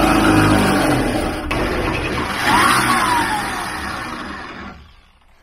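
Power drill running under load, boring a hole through the van's sheet-metal frame for a plusnut. About two and a half seconds in, a brief squeal falls in pitch, and the drill winds down near the end.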